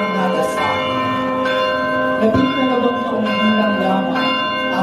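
Church bells ringing, struck every second or so and ringing on between strikes, with voices beneath.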